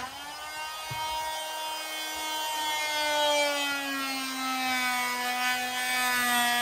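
Oscillating multi-tool cutting a slot into a wooden scaffold board for a biscuit joint: a steady buzzing whine whose pitch sags slowly.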